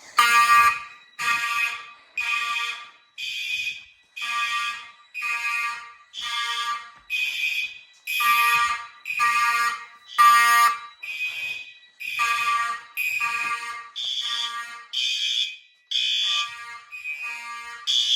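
Fire alarm horn sounding in short buzzing blasts, about one a second.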